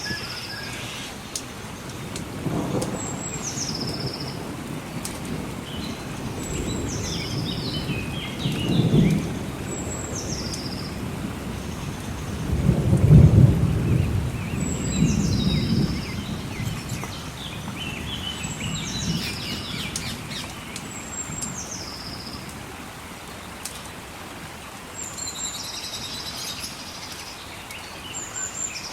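Thunder rumbling several times over steady rain, the loudest roll about twelve to sixteen seconds in. A bird repeats a short high call that steps down in pitch, every few seconds.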